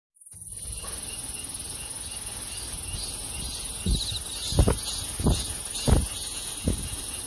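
Night insects, crickets among them, keep up a steady high trill, with a slower pulsing chirp beneath it. The trill fades in over the first second. From about four seconds in, a series of short, soft low thumps comes roughly every half second or so.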